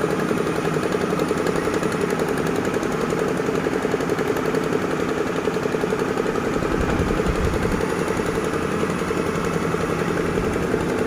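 Heavy diesel engine of an excavator or dump truck running steadily with a fast, even chugging pulse. A little more low rumble comes in partway through.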